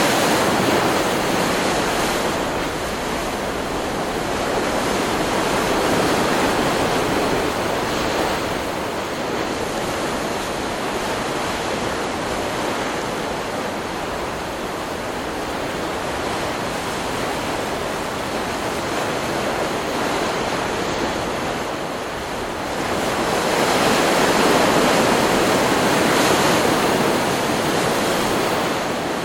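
Ocean surf from a stock beach recording: a steady wash of breaking waves that swells and eases, with the loudest surge about three-quarters of the way through.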